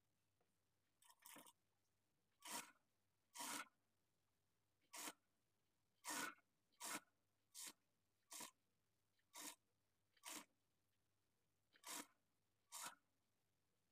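Near silence, broken about once a second by faint, brief rustles and scrapes of cloth being handled.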